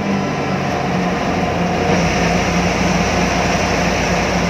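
Bus engine and road noise heard from inside the cab of a moving bus: a loud, steady drone with a low hum over an even rushing noise.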